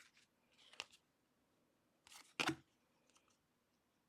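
Trading cards being handled and flipped through: a faint click, then one short paper-card swish about halfway through, otherwise quiet room tone.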